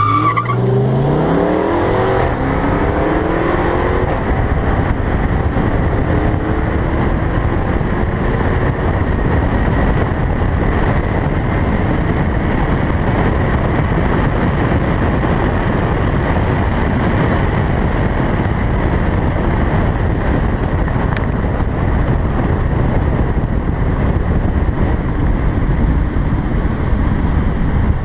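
Car launching from a standing start in a drag race, its engine revving up in rising sweeps through the first gears over the first few seconds. It is then drowned by a steady rush of wind and road noise on the side-mounted microphone as the car runs at speed.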